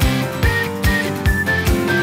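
Background music with a steady beat and a high melody line.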